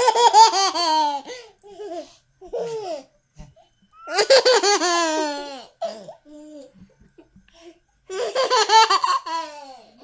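A young child laughing in three loud bursts of giggles about four seconds apart, with softer short vocal sounds between them.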